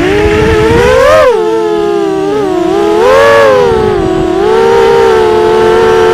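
ImmersionRC Vortex racing quadcopter's brushless motors and Gemfan 5x4 propellers whining as it takes off, the pitch rising sharply as the throttle comes up. The whine swells and falls back twice, then holds steady in forward flight. It is recorded on board, so the motors are loud and close.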